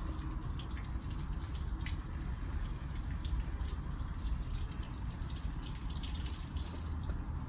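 Water pouring from a plastic watering can's rose spout onto leafy plants and soil, a steady shower of water with many small droplet ticks, over a low steady rumble.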